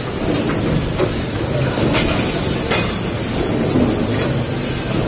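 Automatic caster bracket riveting machine and its conveyor running with steady mechanical noise, broken by a few sharp clicks.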